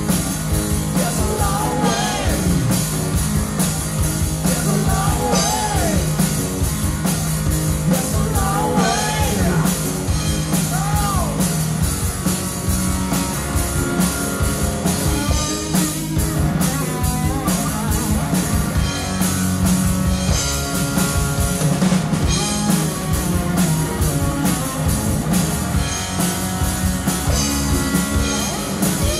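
Live rock band playing on stage: electric guitar, bass guitar and drum kit, with a male lead vocal over the band.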